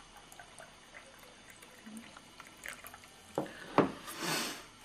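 Cups and crockery being handled: two sharp clinks a little over three seconds in, then a hiss of about half a second as coffee is poured into a cup.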